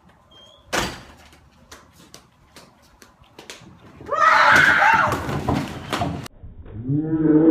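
A single sharp bang, then light footsteps, then a woman screaming in fright for about two seconds, loud and wavering in pitch. Near the end, a slowed-down, deeper version of the scream begins.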